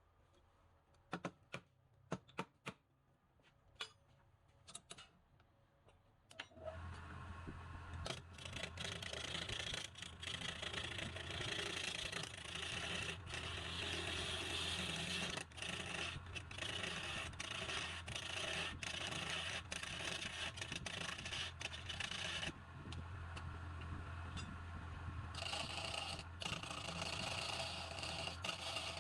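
A few sharp taps and knocks, then a woodturning lathe's motor starts with a steady low hum and a tool scrapes against the spinning workpiece. The scraping eases off for a few seconds near the three-quarter mark, then resumes.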